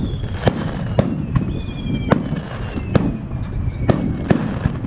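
Aerial fireworks bursting in quick succession: sharp bangs about every half second over a continuous low rumble, with two long whistles from whistling shells gliding slowly down in pitch.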